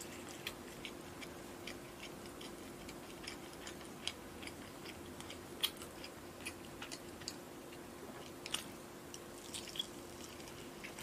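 Quiet close-up chewing of roast chicken leg: scattered soft wet mouth clicks and smacks, a few sharper ones, over a faint steady hum.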